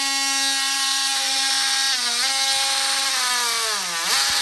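Oscillating multi-tool cutting through a pressure-treated wooden stair stringer, with a steady high buzz. Its pitch dips briefly about two seconds in and sags lower near the end as the blade bites into the wood.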